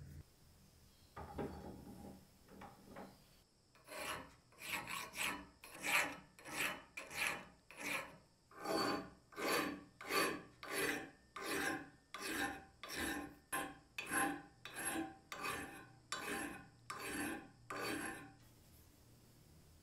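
Round file rasping by hand over a cast-iron tile-cutter frame held in a vise, filing off casting imperfections. A few light strokes, then a steady run of strokes at nearly two a second that stops shortly before the end.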